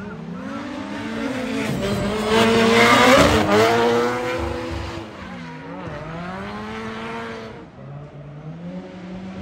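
Drift car engine revving up and down with tyre squeal, loudest about two to four seconds in as the car slides past. The revs drop sharply past the middle, climb again, then settle to a lower steady note near the end.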